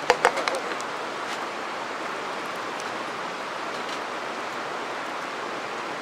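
Yakisoba noodles and cabbage frying in a metal pot over a charcoal fire, a steady sizzling hiss. A few sharp knocks of the wooden spatula against the pot near the start.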